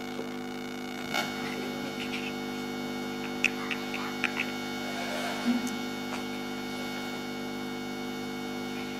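Steady electrical mains hum, with a few light clicks of plastic building blocks being handled on a table.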